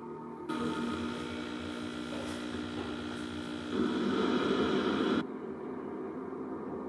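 Hiss and hum with steady tones from an old CRT television's speaker as a videotape plays. It starts suddenly about half a second in, grows louder about four seconds in, and cuts off abruptly after about five seconds, leaving a fainter hum.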